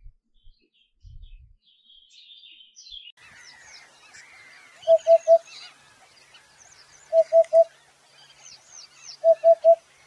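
Canary chirping, joined about three seconds in by a dense chorus of many small birds twittering. Over it, a loud low call of three quick even notes repeats three times, about two seconds apart.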